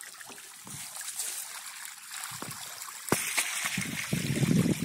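Water trickling and splashing as a mass of small puti fish flap in the shallow water held in a net fish trap, with scattered sharp splashes and flicks.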